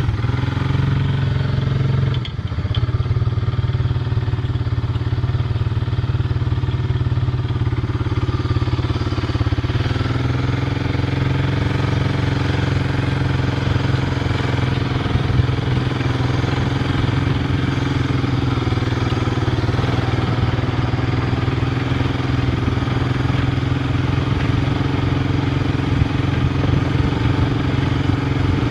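An engine running steadily, with a brief dip a couple of seconds in and a slight change in its note about ten seconds in.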